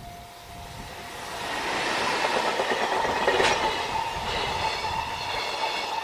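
JR Freight EF210 electric locomotive and its long container freight train passing close by: the rumble of wheels on rail swells over the first two seconds and holds, with a steady high tone over it and one sharp clack about three seconds in.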